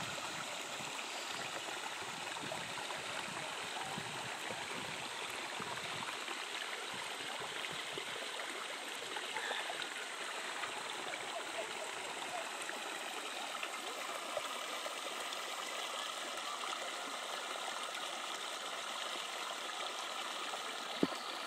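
Shallow creek flowing steadily over rocks and gravel in small riffles. A single sharp click near the end.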